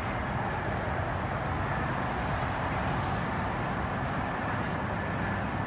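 Steady roar of freeway traffic, an even wash of tyre and engine noise with no single vehicle standing out.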